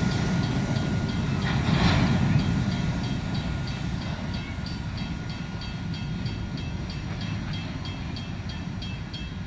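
Freight train of covered hopper cars rolling away on the track: a low rumble that fades steadily, with a brief louder rush about two seconds in and the wheels clicking over rail joints about three times a second.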